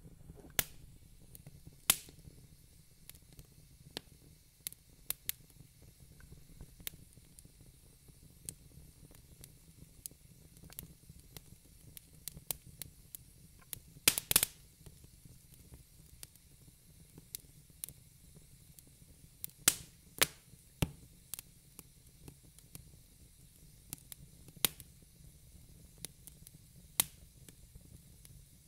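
Faint, irregular sharp clicks and pops over a low steady hum, with a quick cluster of louder pops about halfway through.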